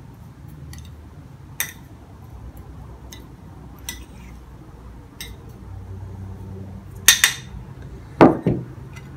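Kitchen utensils clinking and knocking against bowls and dishes: a few light clicks at first, then several louder knocks near the end.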